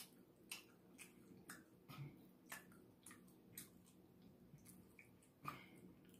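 Faint chewing with soft, wet mouth clicks, roughly two a second, over a low steady room hum.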